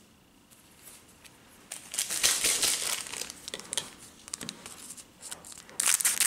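A hockey card pack's shiny wrapper crinkling as it is picked up and handled, starting about two seconds in. Near the end come a few louder sharp sounds as scissors cut across the top of the pack.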